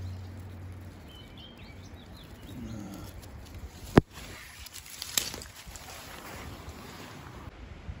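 Camera handling noise among twigs and leaves at a nest: rustling with a sharp knock about four seconds in and a smaller one about a second later. A few faint high bird chirps sound about two seconds in.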